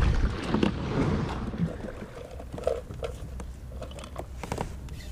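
Water and wind noise around a fishing kayak. After about two seconds it quietens, and a scatter of light clicks and taps follows.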